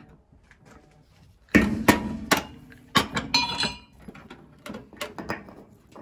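Metal parts and tools being knocked together: several sharp clanks and knocks starting about a second and a half in, a brief metallic ring a little later, and lighter taps near the end.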